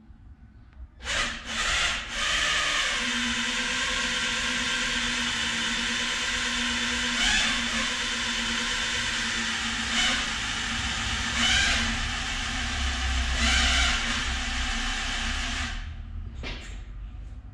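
Electric drill running steadily for about fifteen seconds, with a few brief surges, as it spins the Opala engine's oil pump through a home-made adapter shaft, heard from inside the car's cabin. This primes the engine's oil system without starting it, with the pressure building to about 2 bar.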